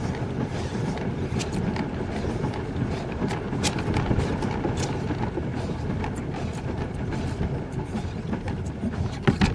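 Low, steady rumbling noise with scattered light clicks, and one sharper knock near the end: the microphone being handled and things bumping on a plastic kayak.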